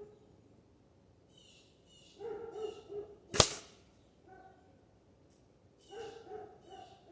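A single shot from a Ruger Air Hawk Elite II break-barrel spring-piston air rifle, one sharp crack about three and a half seconds in. Repeated pitched animal calls come in short groups around it.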